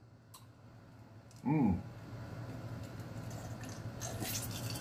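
A man drinking from a glass: a brief falling 'mm' about a second and a half in, then faint sipping and swallowing of the drink.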